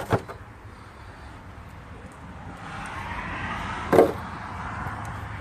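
A vehicle's engine running steadily, with a swell of noise building in the middle and a single sharp knock about four seconds in.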